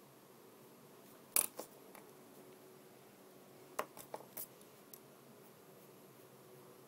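A few sharp clicks and taps from the pencil being handled over the drawing paper: one loud click with two lighter ones after it, then a quick run of four or five clicks a couple of seconds later.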